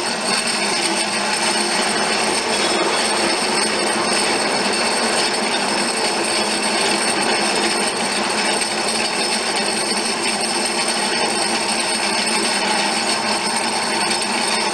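Automatic tubular-mesh loader and cutting machine running steadily: an even mechanical whir and hiss with a few faint steady hums.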